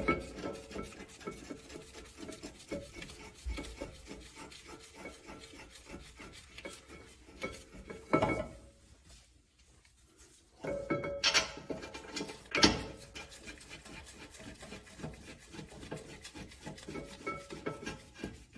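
A ratchet wrench clicking rapidly as the two rear brake caliper bracket bolts are run in, with metal scraping, and louder clanks of tool on bracket about eight, eleven and twelve and a half seconds in.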